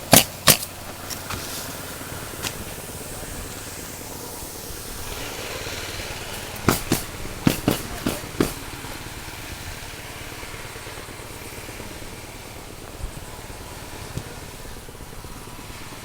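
Pneumatic roofing nailer firing nails into shingles: a couple of sharp shots at the start, a quick run of six shots about halfway through, and two fainter ones near the end, over a steady motor hum.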